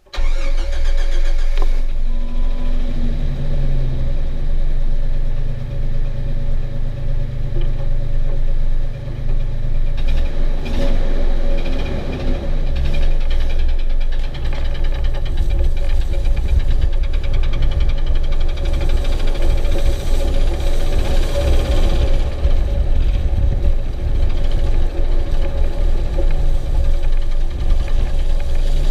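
1997 Jeep Wrangler TJ's 4.0-litre straight-six running, with a knocking that the owner cannot place between the engine and the transmission.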